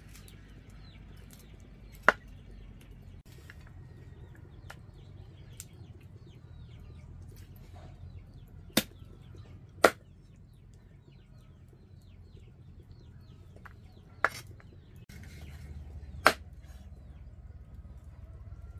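Five sharp, separate knocks a few seconds apart, two of them about a second apart near the middle, over a steady background of small birds chirping.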